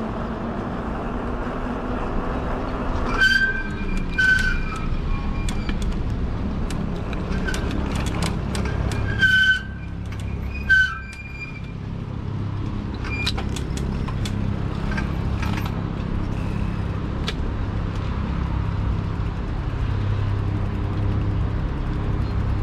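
E-bike riding along with wind rushing on the microphone, broken by four short, high squeals of its brakes, two close together about three and four seconds in and two louder ones around nine and eleven seconds in. The rushing eases after the squeals as the bike slows, and there are scattered light clicks from the ride.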